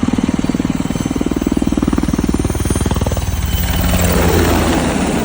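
Low-flying firefighting helicopter, its rotor blades thudding in a fast, even beat. About three seconds in the thudding fades into a louder rushing engine noise as the aircraft passes close by.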